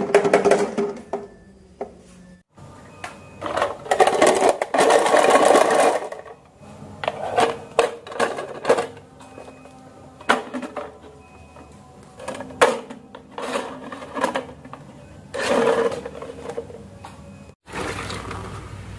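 Marbles rolling and clattering down a handmade marble run of gutter slopes, in rumbling runs of a second or two broken by sharp clicks as they hit and drop. The sound cuts off abruptly about two and a half seconds in and again near the end.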